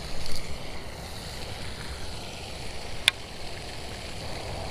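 Steady rush of wind on the microphone mixed with the splashing of a pond fountain, broken by one sharp click about three seconds in.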